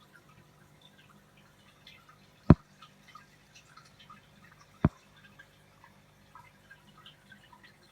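Aquarium water trickling and dripping in small scattered ticks over a low steady hum, typical of a filter or air pump running. Two sharp clicks stand out, about two and a half seconds apart.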